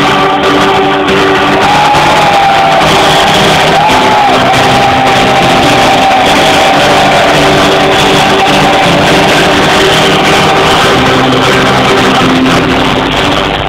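Loud live band music from a concert stage, picked up from within the crowd on a phone's microphone. A held melodic line wavers and slides in pitch over steady backing, with shouts from the crowd.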